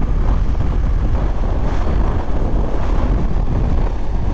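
Wind buffeting the rider's microphone on a moving Yamaha MT-09 motorcycle: a steady low rumble, with the bike's stock-exhaust engine running beneath it.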